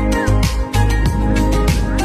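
Background music with a steady drum beat, about four hits a second, over a heavy bass line and held notes.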